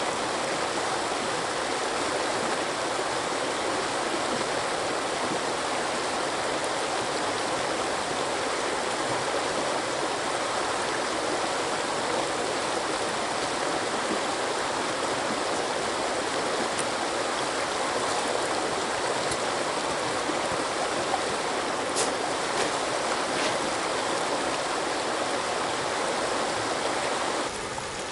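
Shallow rocky river running over riffles and small rapids: a steady rushing wash of water, a little quieter near the end.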